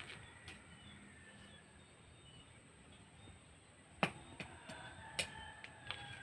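Scattered knocks and rustles of hand weeding and a small tool working grass and soil, the sharpest knock about four seconds in. Faint bird calls in the background.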